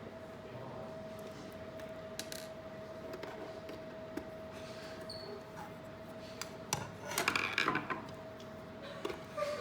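Small hard parts being handled, clicking and scraping now and then, with a burst of rattling clatter about seven seconds in. A faint steady hum runs underneath.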